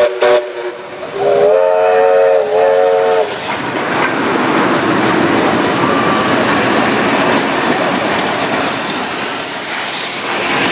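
A steam locomotive's multi-note chime whistle cuts off just after the start, then is blown again for about two seconds from about a second in. After it comes the steady rush of steam trains passing close by: steam hiss and rolling carriages.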